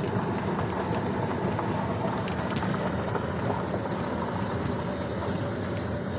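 Steady road noise inside a moving car's cabin: the engine running and the tyres rolling on a gravel road, an even low rumble.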